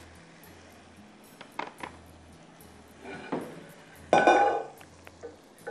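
A metal spoon clinking against a cooking pot a few times while cooking, with a louder ringing strike about four seconds in.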